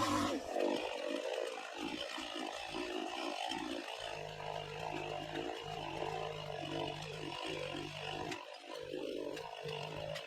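Two-stroke chainsaw running and cutting, its sound rising and falling unevenly; a steady low hum comes in about four seconds in and drops out briefly a few times.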